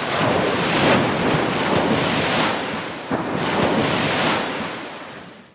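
Ocean surf, waves washing in and out in repeated surges. It fades away over the last second and stops.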